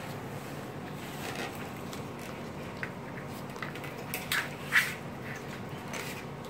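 A Great Dane puppy mouthing and shoving a plastic hand brush across the floor and against the skirting board: scattered scrapes, rustles and knocks, the loudest cluster about four to five seconds in.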